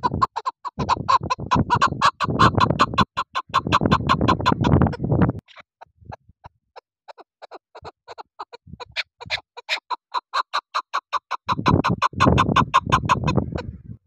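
Female chukar partridge calling: a fast, even series of chuck notes, about eight a second, in two long bouts with a pause of about two seconds between them.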